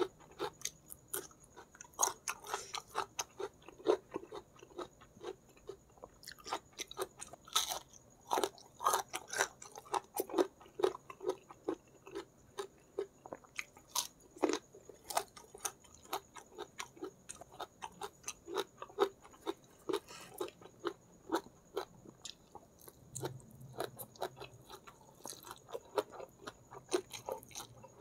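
Close-miked chewing with the mouth: irregular wet smacks and crisp crunchy clicks, several a second, as a person eats.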